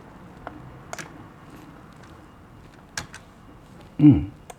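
Quiet room background with three faint, sharp clicks spread through the pause, and a brief low vocal sound from a man near the end.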